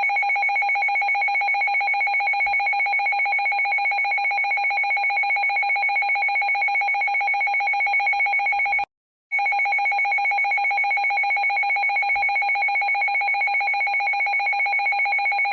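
Electronic emergency-alert attention tone: a single shrill, rapidly pulsing alarm tone that sounds for about nine seconds, breaks off for a moment, then sounds again for about six seconds.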